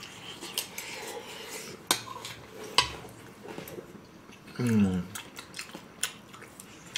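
Chopsticks clicking against plates and bowls as two people eat, a few scattered sharp clinks. A short voiced sound from one of the eaters just before five seconds in.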